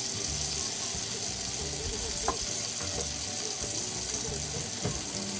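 Onion, garlic, ginger and tomato frying in hot oil in a pan: a steady sizzle, with a light knock about two seconds in and another near the end.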